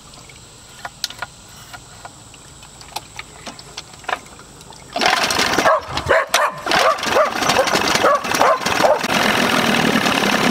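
A few faint clicks, then about five seconds in a 1991 Evinrude 30 hp two-cylinder two-stroke outboard fires up suddenly. It sputters unevenly for a few seconds, then settles into a steady run.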